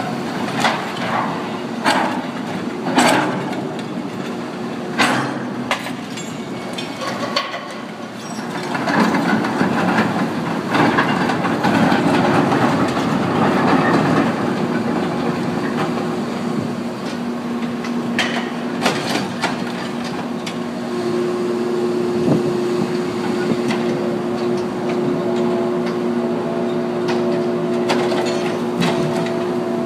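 Cat log-loading excavator at work on a ship's deck: its diesel engine and hydraulics run throughout, with sharp wooden knocks and clunks in the first few seconds as logs are handled. The machine gets louder for several seconds about a third of the way in, then settles into a steady droning tone.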